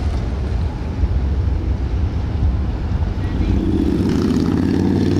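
Motorcycle engines rumbling steadily, with one engine note building and getting stronger from a little past halfway through.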